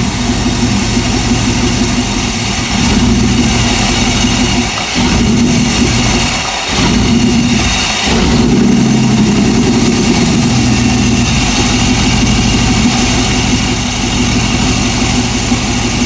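1998 Chevy 5.7 V8 running with its speed rising and falling through the stretch. It is running lean and idling poorly from a large vacuum leak.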